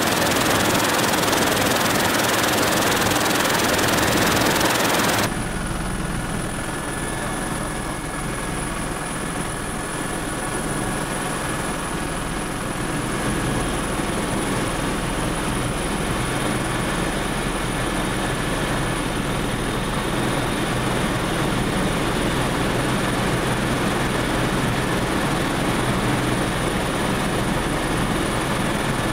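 Helicopter cabin noise in level flight: a steady engine-and-rotor drone. About five seconds in, the sound changes abruptly from a loud rushing noise to a slightly quieter, steadier hum with a thin high whine over it.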